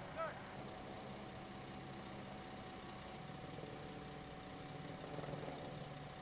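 Vehicle engine idling with a steady hum, a little louder about five seconds in, and a brief high chirp about a quarter second in.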